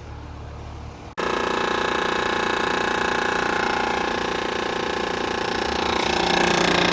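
A loud, steady rattling buzz from a 2015 Carrier Comfort 4-ton heat pump outdoor unit. It starts abruptly about a second in after a low hum and grows a little louder near the end. The unit has a bad run capacitor, and the owner suspects the compressor has failed too.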